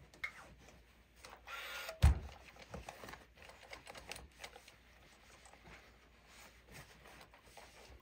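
Scattered small knocks and rustles of things being handled, with a short hiss and then a sharp thump about two seconds in.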